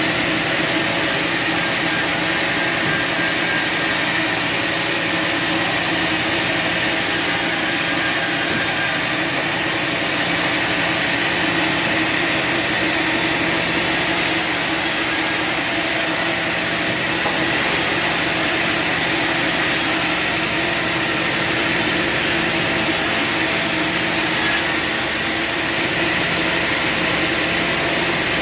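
Bandsaw sawmill running steadily, its engine droning under the hiss of the band blade sawing through wood.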